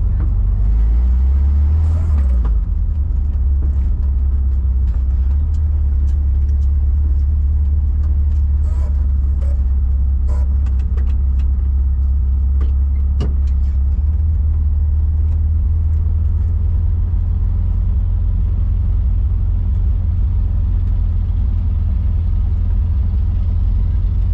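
Car driving along, a steady low engine and road drone, with a few sharp clicks over it.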